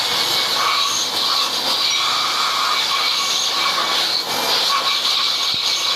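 A machine in a turbocharger repair workshop running steadily: a loud, even hiss with thin high squealing tones over it.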